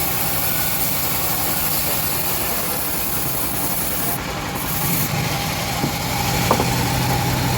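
Homemade engine-driven bandsaw mill cutting through an old teak log: a steady hiss of the blade in the wood over the running engine. The hiss dips briefly about four seconds in.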